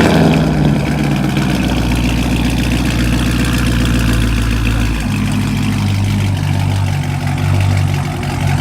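Supercharged 6.2-litre LSA V8 of a second-generation Cadillac CTS-V idling just after its first start on a freshly fitted aftermarket exhaust. The idle is loud and steady, and about five seconds in its note settles lower.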